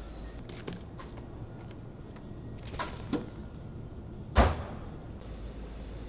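A few light clicks and scrapes, then one sharp knock about four and a half seconds in, over a low steady rumble.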